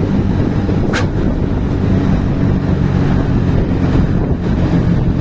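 Exhaust of the MSM Nawasena coach's diesel engine running with a steady low drone. A single sharp click about a second in.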